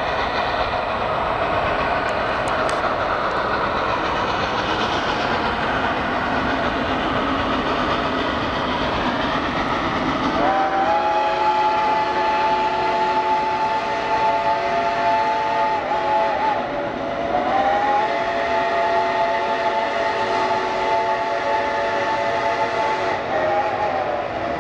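Steam locomotive working in the distance with a steady rushing noise. About ten seconds in, its chime steam whistle blows two long blasts, each sliding up in pitch as it opens.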